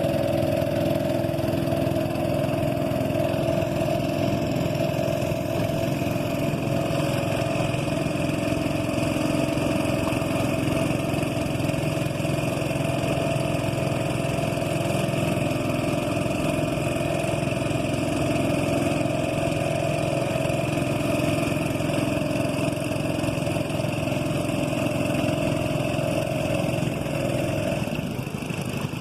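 Boat engine running steadily with an even drone; its higher tone fades out and the level drops slightly near the end.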